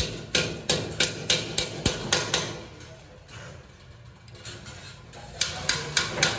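Hammer striking the end tab of a thin steel ceiling-frame channel: a quick run of about nine sharp taps, a pause of about three seconds, then another fast run of taps near the end.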